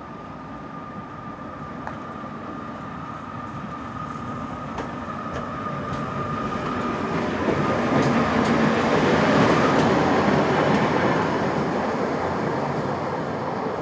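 A tram coming in on its rails, its rumble and rail noise growing steadily louder to a peak about two-thirds of the way through, then easing slightly. A thin steady high whine sounds through the first half and fades, with scattered light clicks of wheels over the track.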